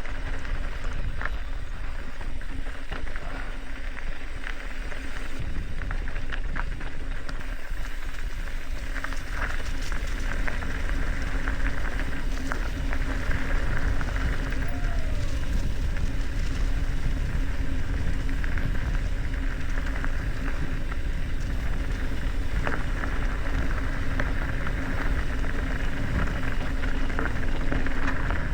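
Mountain bike riding a dirt trail: wind rushing over the action camera's microphone, tyres rolling, and the bike rattling and clicking over bumps, with a steady hum from about five seconds in.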